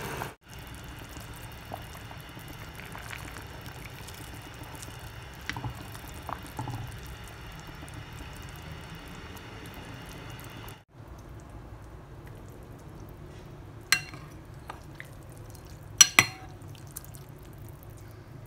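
Ginseng chicken soup boiling in a pot with a steady bubbling hiss. Near the end come three sharp clinks of a metal ladle against a ceramic bowl.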